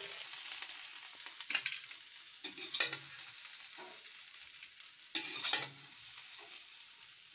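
Metal spatula stirring and scooping fried potato bhujiya in a black iron kadhai, over a steady faint sizzle. A few louder scrapes of metal on the pan come about a second and a half in, near three seconds, and twice just after five seconds.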